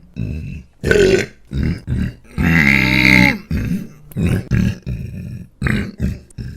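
A man's belches, a rapid string of short burps one after another, with one long, loud, pitched belch lasting about a second in the middle.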